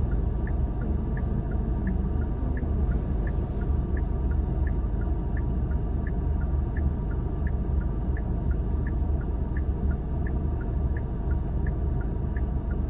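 Road and engine noise inside a moving car's cabin: a steady low rumble, with a turn-signal indicator ticking evenly about three times a second.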